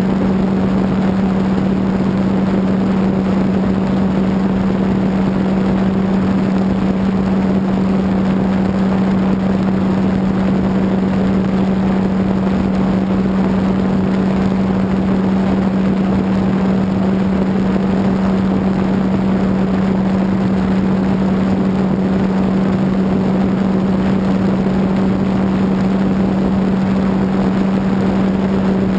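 Electric motor and propeller of an E-flite Apprentice RC plane, heard from a camera on board in flight: a steady, unchanging hum over a haze of rushing air.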